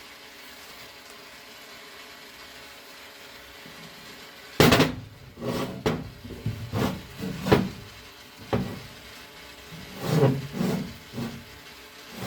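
Hammer blows on a stainless steel propeller blade tip as it is straightened. A sharp strike comes about four and a half seconds in, followed by a string of irregular knocks of varying strength.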